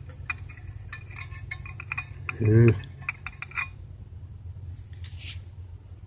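Small metal parts and hand tools clicking and clinking while a car's instrument cluster is taken apart, over a steady low hum. A brief loud pitched sound comes about two and a half seconds in, and a short hiss near the end.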